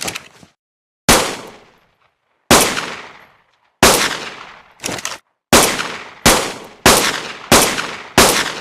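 Pistol gunshot sound effect: eight shots, each with a ringing echo tail, the first three about a second and a half apart, then coming faster at about a shot every two-thirds of a second. Shorter, duller bursts without a tail sound at the start and about five seconds in.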